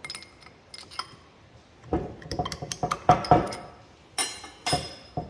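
Steel hand tools and parts clinking and clattering on a workbench. A few light clicks come first, then a run of knocks and rattles about two seconds in, then two sharp metallic clinks near the end that ring briefly.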